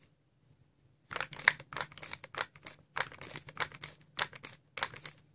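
Origami paper crinkling and rustling in quick irregular crackles as a folded paper flasher model is pulled open from its collapsed box shape, starting about a second in.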